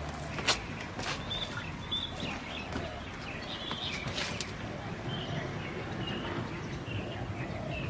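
Birds chirping over a steady outdoor background hiss, with a few sharp clicks, the loudest about half a second in.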